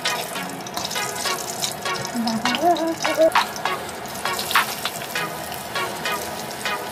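Cumin seeds sizzling in hot oil in a pan, with a spatula scraping and stirring in short strokes. Sliced onions go into the hot oil near the end.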